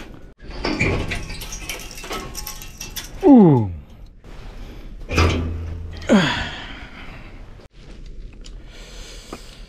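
Clinks, knocks and scraping of metal tools and fittings being worked on an espresso machine, with two short groans of a man's voice falling in pitch, about three and six seconds in.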